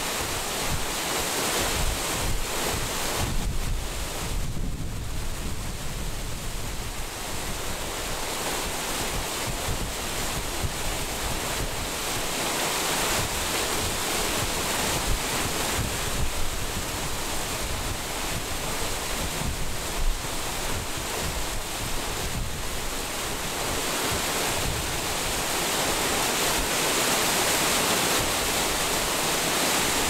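Irrigation water pouring steadily over a row of notches in a concrete water-dividing weir and rushing into the basin below. Wind buffets the microphone throughout.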